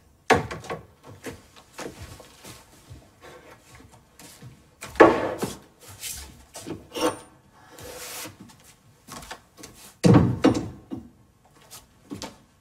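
Something being rubbed against a metal box grater by hand in irregular scraping strokes. Louder kitchen clatter comes about five and again about ten seconds in.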